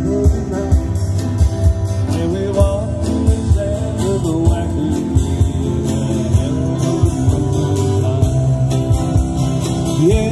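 Live acoustic band playing a song: strummed acoustic guitars over a steady drumbeat, with a singer's vocal line.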